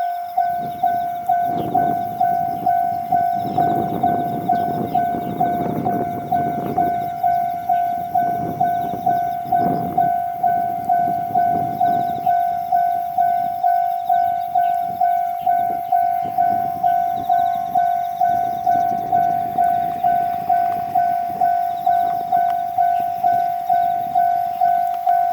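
Japanese level-crossing warning bell ringing steadily, a little under two strikes a second. A train passes over the crossing with a rumble and clacking wheels, loudest from about half a second to twelve seconds in and fainter again later.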